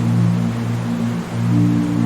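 Ambient music of low, slowly changing held notes laid over a steady rushing noise of river water.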